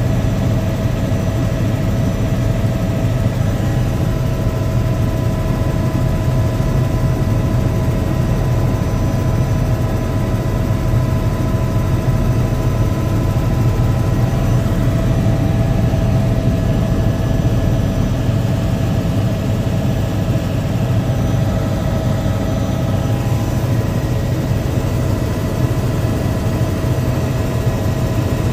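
Helicopter engine and rotors heard from inside the cabin in steady flight: a loud, deep, unbroken drone with a few thin, steady whining tones above it.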